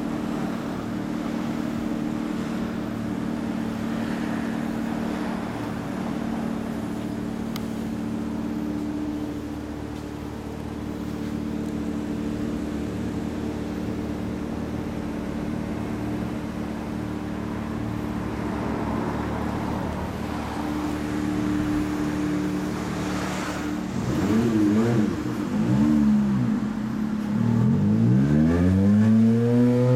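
1988 Honda CBR250R Hurricane's 250 cc gear-driven-cam inline-four idling steadily through a Daishin Racing aftermarket exhaust. Over the last six seconds it is blipped about four times, the revs rising and falling quickly.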